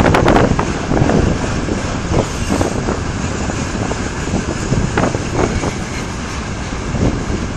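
Freight train rolling past with a steady rumble, and irregular clanks of wheels and couplings going over the rails.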